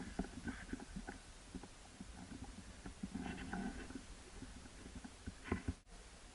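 Short, low moose grunts, one about three seconds in and another near the end, over faint rustling and crackling in the brush.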